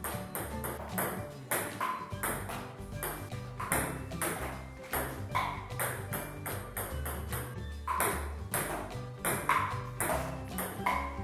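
Background music with a stepping bass line, punctuated by short ringing pings every second or two.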